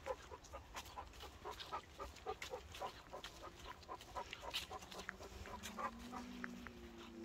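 Weimaraner panting in a quick, even rhythm, with footsteps rustling through dry fallen leaves. A steady low hum sets in about five seconds in.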